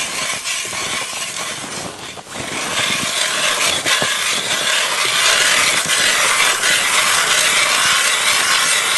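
Hand-cranked ice auger boring through lake ice: a steady scraping and crunching as the blades shave the ice, briefly dipping about two seconds in and louder after that.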